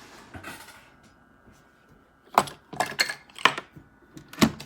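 A quick run of about five sharp clicks and knocks of small hard objects being handled, starting a little past two seconds in.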